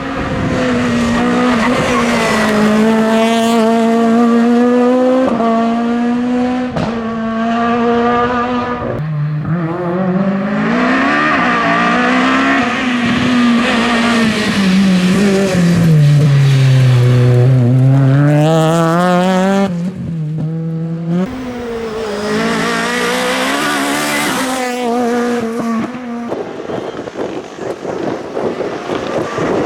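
VW Golf IV KitCar rally car's four-cylinder engine driven hard at high revs. Its pitch holds high, breaks off briefly at several gear changes, then drops and climbs again as the car slows and accelerates.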